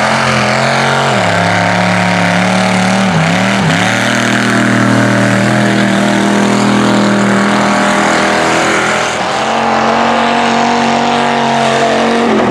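Lifted mud truck's engine held at high revs as it runs across a dirt course. Its pitch drops about a second in and dips briefly again around three seconds in.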